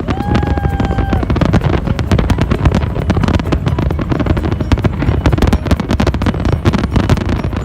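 Fireworks going off in rapid, dense crackling pops over a low rumble. Near the start a steady whistle-like tone sounds for about a second.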